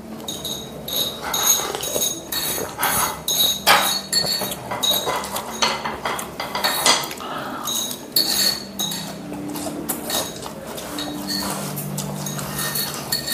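Chopsticks and cutlery clinking against ceramic bowls and plates while people eat, with many sharp, lightly ringing clinks scattered irregularly throughout.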